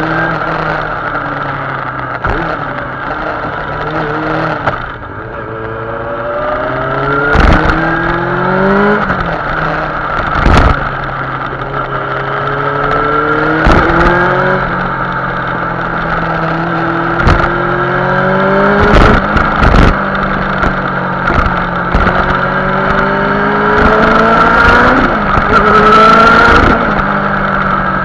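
Yamaha R6 sport bike's inline-four engine through an aftermarket Viper exhaust, accelerating in repeated rising sweeps, each cut off by a gear change, with steadier cruising stretches between. A few sharp cracks stand out now and then.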